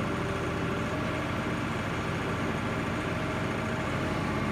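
Small tractor's engine running steadily.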